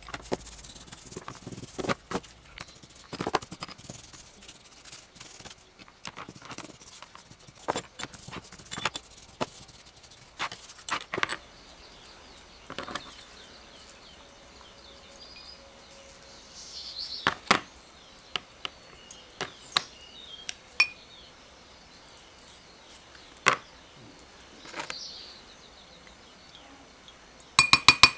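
Small metal drill parts gripped in pliers clinking and tapping against a glass jar and a rubber tray as they are brushed and dipped in liquid. The clinks are sharp and scattered, with a quick cluster of taps near the end.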